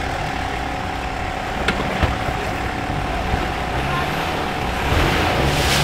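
An off-road 4x4's engine running as it crawls through a deep mud rut, with a couple of sharp clicks about two seconds in and a louder surge near the end as the engine is pushed harder.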